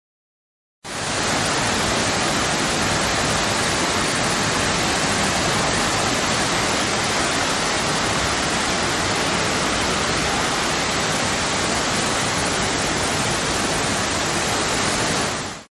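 Steady rush of fast-flowing floodwater, a loud, even noise without let-up. It starts abruptly about a second in and cuts off just before the end.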